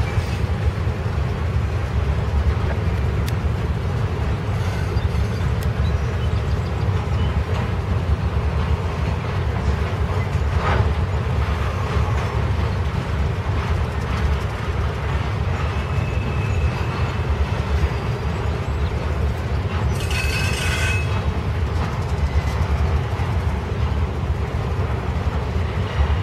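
Intermodal freight train of trailers on flatcars rolling steadily past, a continuous low rumble of wheels on rail, with a brief high squeal near the end.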